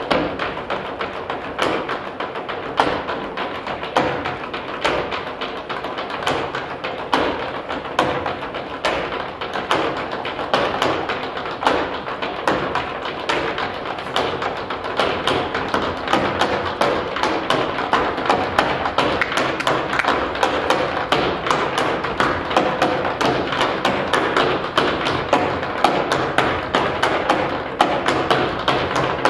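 Tap shoes' metal plates striking a wooden floor in fast, continuous rhythmic patterns, the taps growing denser and a little louder about halfway through.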